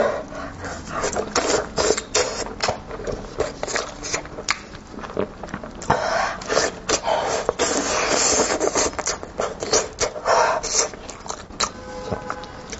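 Skin being peeled off a cooked sheep's tongue close to the microphone: a dense run of short clicks and crackly, sticky tearing noises, busiest from about six to eight seconds in.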